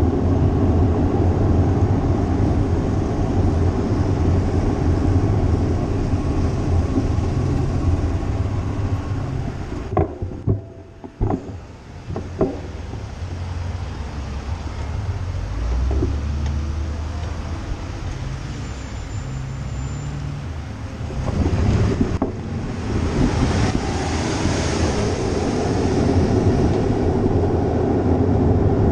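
Wind rushing over a GoPro's microphone on a moving bicycle, with low road rumble underneath. It drops back about ten seconds in, where a few sharp clicks sound, then swells louder and hissier from about two-thirds of the way through.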